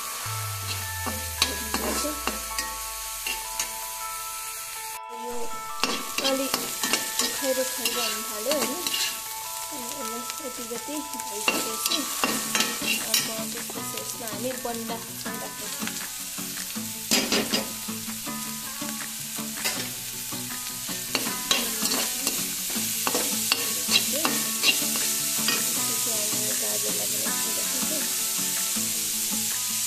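Chopped vegetables sizzling in hot oil in an iron kadhai while a perforated steel spatula stirs them, scraping and knocking against the pan again and again. The sizzle grows a little fuller near the end.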